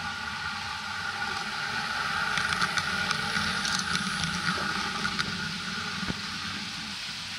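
A model passenger train running past, its electric motor humming with a steady whine and its wheels rolling over the track with scattered clicks. It grows louder in the middle as it passes closest, then fades.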